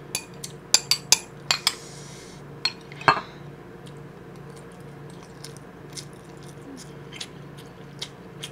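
Metal spoon clinking against a ceramic rice bowl: a quick run of sharp clinks in the first three seconds, with a short scrape about two seconds in, then a few softer taps.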